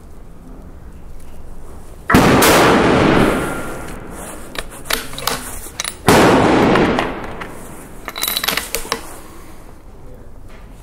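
Two rifle shots from an F-Class target rifle, about two and six seconds in, each trailing off in a long echo. Runs of short, sharp clicks fall between and after the shots.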